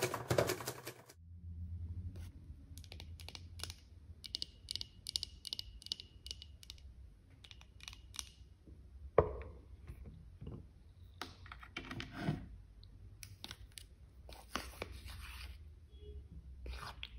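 A white cardboard box being opened close to the microphone: a run of short tearing rips, then a sharp click, knocks and handling as a plastic food container with clip-on lid is picked up and opened.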